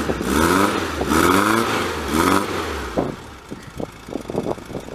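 Air-cooled flat-four engine of a VW Beetle, running through an EMPI quarter-pack exhaust, revved three times in quick succession and then settling to a lumpy, uneven idle about three seconds in. It has just been started cold after an engine clean-up and new seals, with its automatic choke not yet set up.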